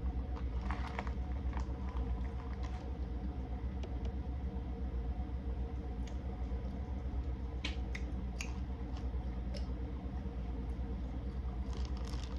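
A steady low hum with scattered small clicks and crackles from seafood shells being handled and eaten during a seafood boil mukbang. A small cluster of clicks comes about three-quarters of the way through.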